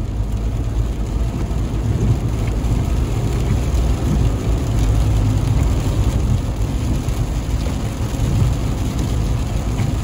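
Car interior noise while driving on a rough, uneven road: a steady low rumble from the tyres and engine, with the car shaking over the bumpy surface.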